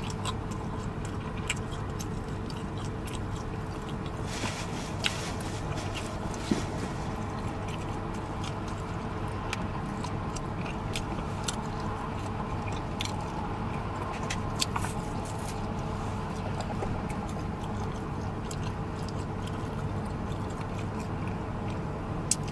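Chewing and gnawing on a barbecue rib, with scattered short smacks and clicks from the mouth, over a steady low hum inside the car's cabin.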